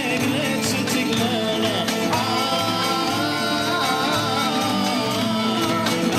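Belly dance music playing, with a singing voice carrying the melody in long, wavering held notes from about two seconds in.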